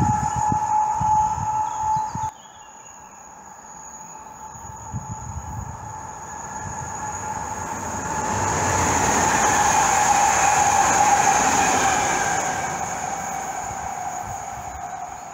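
Koleje Małopolskie 45WE electric multiple unit approaching and passing at speed: the noise swells to its loudest about nine to twelve seconds in, with a steady whine over the rumble, then fades as it moves away. Before it, a louder train sound with a steady whine cuts off suddenly about two seconds in.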